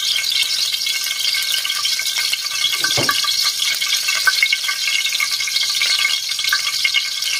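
Cooking oil heating in a wok, a steady dense sizzle with fine crackles and pops, and one sharper click about three seconds in.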